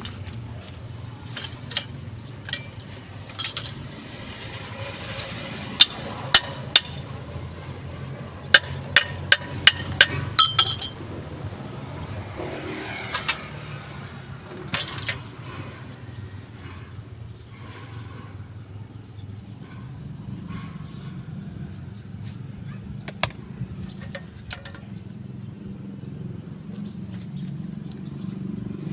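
Sharp metallic knocks and clanks of tools at work, with three strong ones and then a quick run of about seven around a third of the way in, and scattered single knocks after. They sound over a steady low hum.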